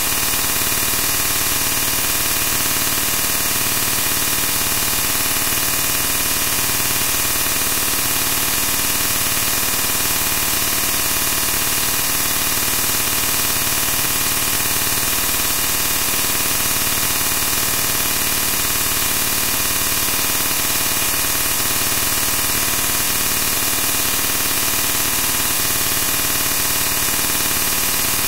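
Loud, steady static hiss that never changes, strongest in the high treble.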